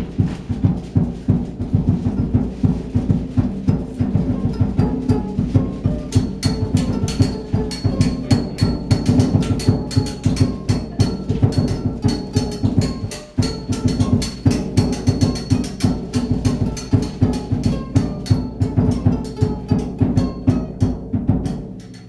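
Drum music: low drums beaten in a quick, steady rhythm, with a thin high ringing tone joining about six seconds in; the drumming stops just before the end.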